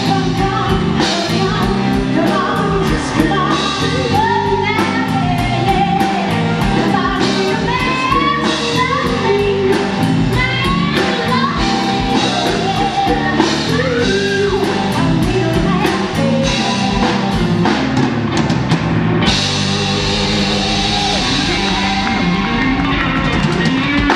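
Live blues-rock band playing electric guitar, drums, bass and keyboard, with a woman singing lead. Cymbals ring in a steady wash over the last few seconds.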